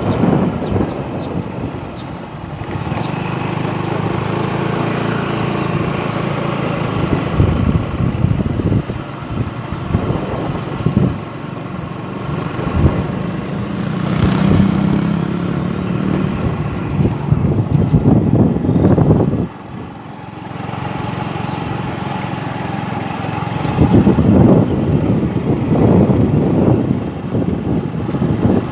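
A motorbike's small engine running while it is ridden, with wind buffeting the microphone; the noise dips briefly about two-thirds of the way through.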